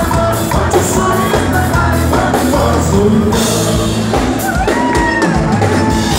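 Live sertanejo band playing with a steady drum-kit beat, bass, electric guitar and accordion, with singing over it.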